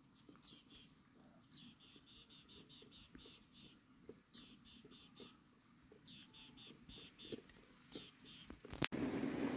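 Insects chirping in short, high, rhythmic pulses, about three to four a second, in runs broken by brief pauses, over a thin steady high whine. Near the end the sound cuts abruptly to a louder, even rushing noise.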